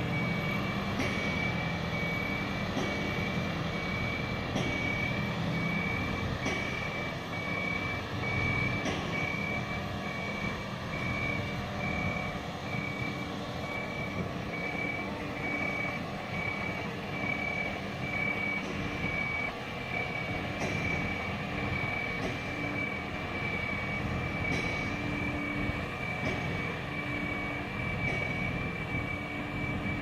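Warning alarm of Ascom RTG 40+40 mobile boat hoists beeping in one high tone at a steady pace while the machines drive, over the steady running of their engines.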